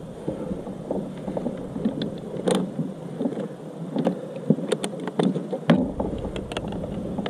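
Scattered sharp clicks and knocks from a fishing rod and reel being worked aboard a kayak during a fight with a big catfish, with a low rumble coming in near the end.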